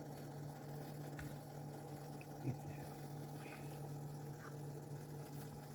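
Quiet room tone: a steady low hum, with a single faint knock about two and a half seconds in.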